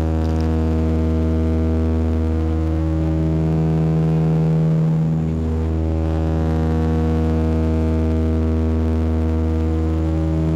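Dash 8-100 turboprop engines and four-blade propellers droning steadily through the cabin during the climb after takeoff: a deep hum made of many steady tones. The sound dips briefly about halfway through, then carries on as before.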